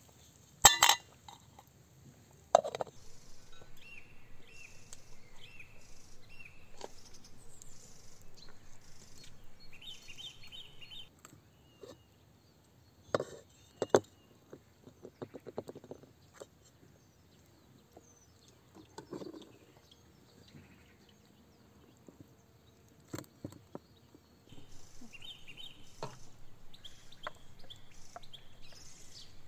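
Birds chirping outdoors, with a few sharp knocks and long stretches of rapid, uneven rustling or scraping.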